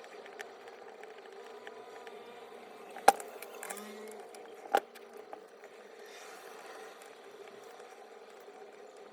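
Parts and tools being handled during disassembly of a reciprocating saw: scattered small taps and clicks, with two sharp knocks about three seconds and nearly five seconds in, over a steady faint hum.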